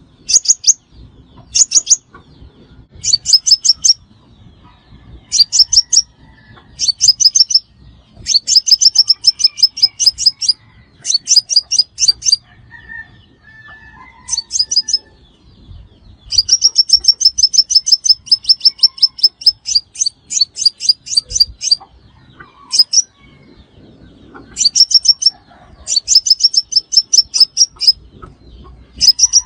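Sunbird singing: fast, high trills of sharp repeated notes in bursts of one to two seconds, with one long trill of about six seconds midway.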